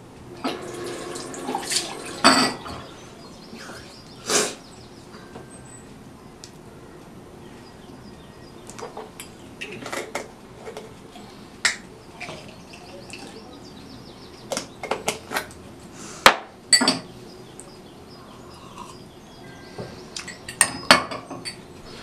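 Small hard objects being handled and set down: scattered clinks, taps and knocks, a few of them sharp, over a low steady background.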